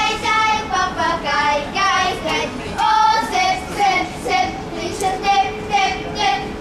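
A group of children singing a song together, their high voices holding notes that step up and down in a simple tune.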